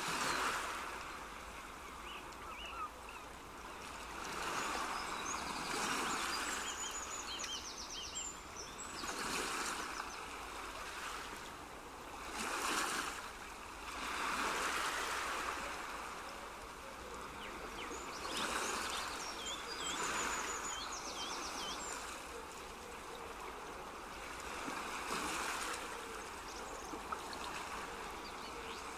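Rushing water, a steady hiss that swells and ebbs every few seconds, with two short runs of high chirps about 5 and 19 seconds in.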